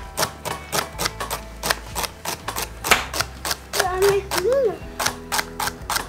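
Chef's knife chopping celery on a bamboo cutting board: a quick, irregular run of sharp knocks, about three to four a second.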